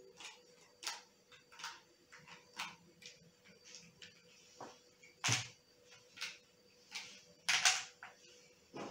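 Irregular clicks and knocks, about one or two a second, from a small homemade battery-powered robot being handled and set on a table, the loudest about halfway and near the end. A faint steady hum lies underneath.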